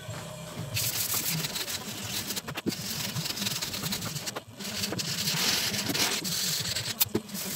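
Hand sanding with P240 sandpaper on a sanding block across a primed car door panel, rubbing back dried acid-etch primer: a scratchy rasping in long back-and-forth runs, with a short break about four and a half seconds in.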